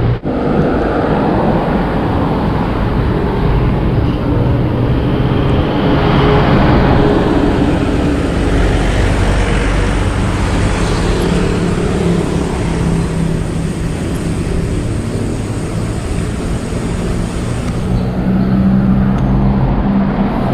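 Road traffic noise: motor vehicle engines running close by on the road, with a steady rushing noise. A low engine hum grows louder near the end.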